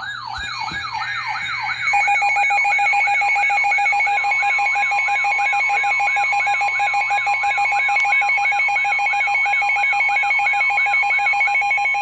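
Layered emergency alert tones. A falling electronic sweep repeats about two and a half times a second. About two seconds in, a rapid pulsing beep joins it. About four seconds in, a steady single tone starts: NOAA Weather Radio's 1050 Hz warning alarm tone, the signal that a warning broadcast (here a flash flood warning) is about to follow.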